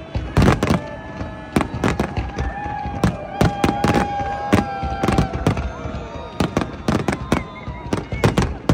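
Fireworks display: many sharp bangs going off in quick, irregular succession, with held and gliding tones running under them.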